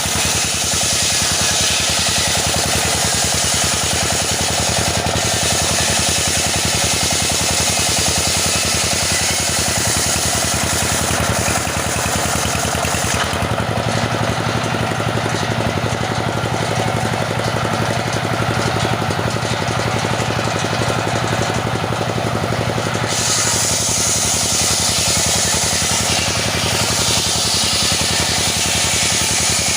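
Petrol-engine saw cutting teak wood, running loud and steady. Partway through, the hiss fades and the engine note drops lower for about ten seconds, then the hiss returns.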